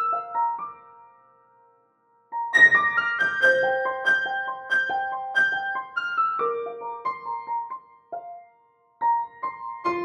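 Background piano music, a melody of separate struck notes that cuts out to silence about two seconds in and again around eight seconds.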